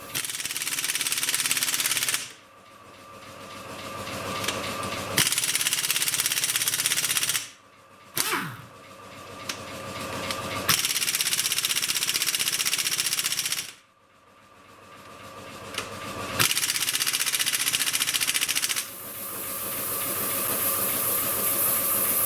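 Pneumatic impact wrench rattling in repeated bursts of two to three seconds, with a short burst followed by a falling whine as it spins down. From about three-quarters of the way through, a steadier hiss takes over.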